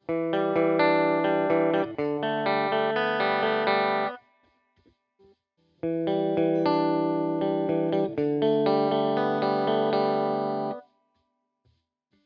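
Epiphone Les Paul Black Beauty three-humbucker electric guitar played clean, strumming chords in two phrases of about four and five seconds, with a pause between and a sudden stop after each.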